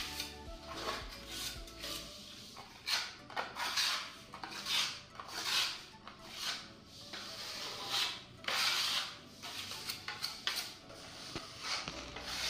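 Steel putty knife scraped across a plastered wall, spreading and smoothing a coat of wall putty in repeated strokes about once a second.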